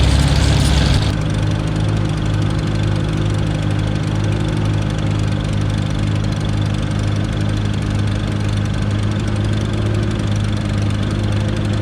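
Tractor engine running steadily at an even speed; about a second in the sound changes, losing some of its high hiss and lowest rumble.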